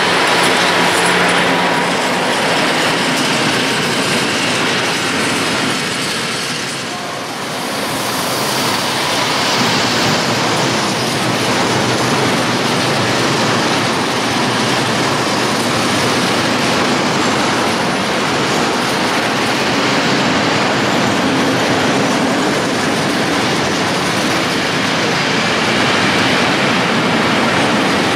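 Polish electric freight trains passing close: first an ET22 locomotive with its open coal wagons, then, after a short dip about seven seconds in, a long train of open wagons hauled by an ET41 rolling past. A steady rumble of steel wheels on the rails.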